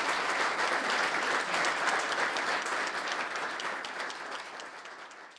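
An audience applauding, a dense patter of many hands clapping that fades out over the last couple of seconds.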